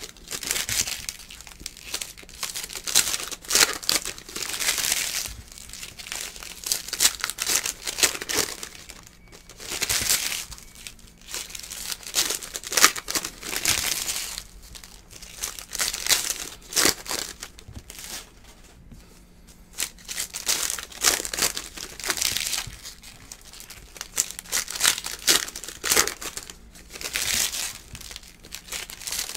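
Plastic wrappers of basketball trading card packs being torn open and crumpled, in repeated spells of crinkling with short pauses between.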